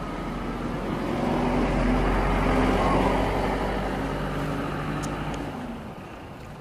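A motor vehicle passing by. Its engine sound swells up, peaks a couple of seconds in and fades away before the end.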